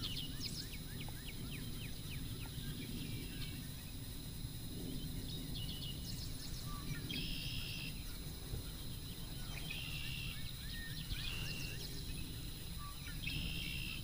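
Birds singing short repeated phrases every few seconds, with some quick chattering trills, over a steady low background rumble.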